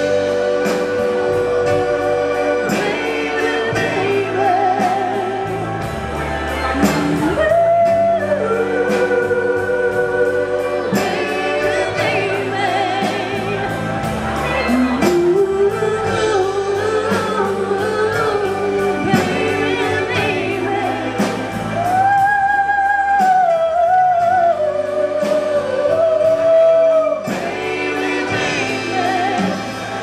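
Live band music with singing: steel pan, congas and electric and acoustic guitars over a steady beat, with a woman's voice holding long notes.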